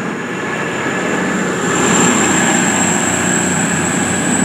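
Class 220 Voyager diesel-electric multiple unit pulling away from the platform, its engines running under power and a high whine rising slowly in pitch as it accelerates, growing louder.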